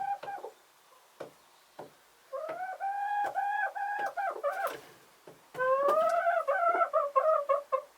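Chickens calling: a drawn-out, pulsing call about two seconds in, then from about five and a half seconds a run of quick repeated notes, about four a second, with short clicks scattered between.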